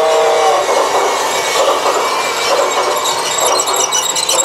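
Battery-operated G-scale toy train running past on its plastic-and-metal track, a steady rattling clatter of wheels and motor. A few held musical tones stop about half a second in.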